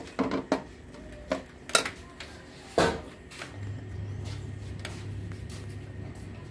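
Metal spoon scraping and clinking against an aluminium wok while stirring ground nuts in ghee, with several sharp clinks in the first three seconds. A low steady hum sets in about halfway through.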